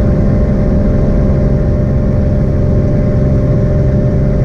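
Cirrus SR22's piston aircraft engine and propeller droning steadily at high power, heard from inside the cabin, shortly after takeoff.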